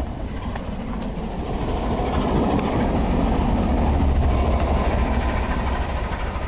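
Train hauled by the steam locomotive Tornado passing close by: a continuous rail rumble that swells to its loudest about four seconds in and then eases off.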